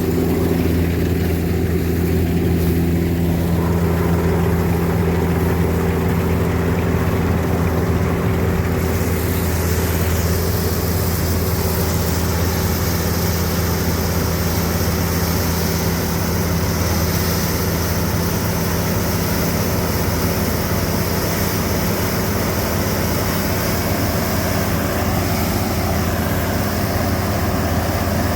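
Combine harvester's engine running at a steady speed, a constant deep drone, with a brighter hiss of machinery added from about nine seconds in.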